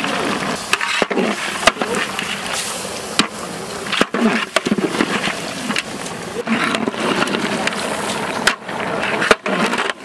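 A long-handled spatula stirring and scraping pieces of francolin meat around a large metal cooking pot, with repeated scrapes and clicks against the pot, and faint voices in the background.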